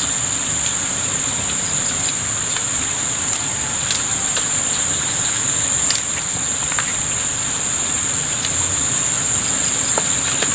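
Steady, high-pitched insect drone, one unbroken tone, with a few faint clicks over it.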